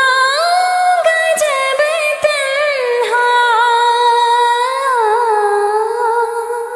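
A woman singing a naat, holding long notes with slow, ornamented bends in pitch, the voice fading near the end.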